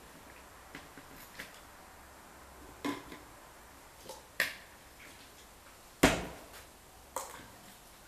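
A few sharp knocks and clacks of firewood and kindling being handled and set down beside a wood-burning stove, the loudest a heavier knock about six seconds in.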